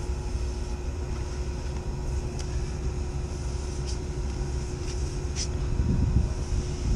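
Steady low rumble with a constant mid-pitched hum, as of running machinery. A few faint, brief rustles come from a rag being worked around a copper pipe.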